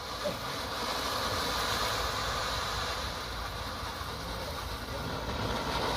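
Ground fountain firework spraying sparks: a steady rushing hiss that swells slightly in the first couple of seconds.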